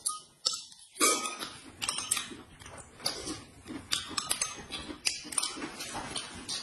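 Eating sounds at the table: chewing and mouth noises with many short clicks of chopsticks and a spoon against plates and a glass bowl.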